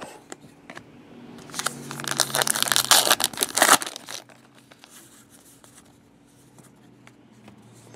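A 2014 Topps Allen & Ginter trading-card pack wrapper being torn open and crinkled: a loud crinkling rustle starting about a second and a half in and lasting about two seconds, then only faint rustles.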